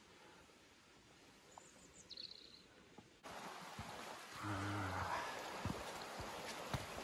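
A short bird chirp over faint outdoor quiet, then a sudden change to a stream running fast over stones, with a brief low hum about halfway and a few light knocks like footsteps on the path.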